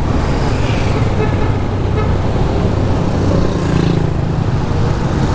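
Honda Genio scooter riding through town traffic: a steady engine and road noise with wind on the microphone and other vehicles passing.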